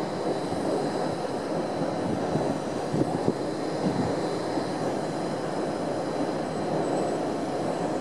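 Steady distant rumble of vehicle noise, with two faint knocks about three seconds in.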